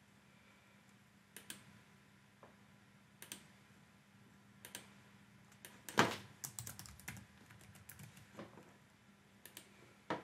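Typing on a computer keyboard: scattered single keystrokes, then a quick run of keystrokes about six seconds in.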